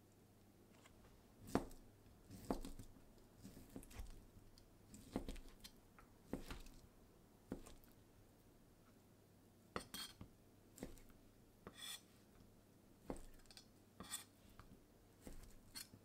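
Kitchen knife slicing through a cooked chicken breast on a cutting board: quiet, irregular taps as the blade meets the board, roughly one a second, some with a crisp, bright click.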